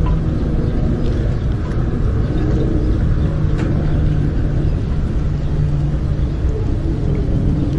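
A motorboat engine running steadily nearby: a low rumble with a held hum, a few faint knocks over it.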